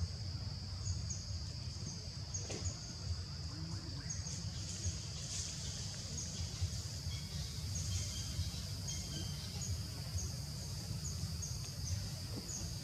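Outdoor insect ambience: a steady high-pitched insect drone, with short high chirps repeating every half second to a second on and off, over a low rumble.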